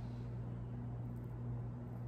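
A steady low hum, with faint soft squishes as a child's hands squeeze and pull edible slime over a glass bowl.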